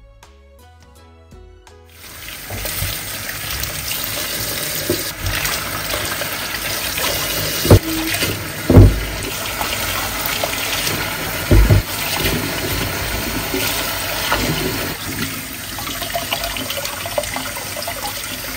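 Kitchen tap running hard into a stainless-steel sink full of fruit and vegetables being washed, the water splashing over them. It comes in about two seconds in, after soft music, and a few loud thumps stand out in the middle.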